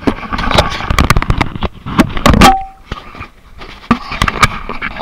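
Handling noise on a body-worn action camera: a rapid run of knocks, clicks and rustling against the microphone as the wearer moves, with one brief high note about halfway through.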